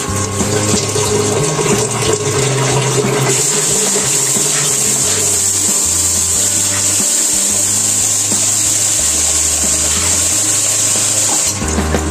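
Water running and splashing as a face is rinsed by hand, with a steadier hiss of running water from about three seconds in until near the end. Background music plays underneath.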